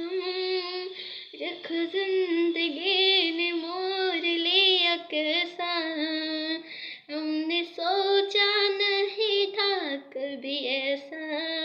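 A boy singing solo in a high voice, phrases with wavering, ornamented turns broken by short pauses for breath.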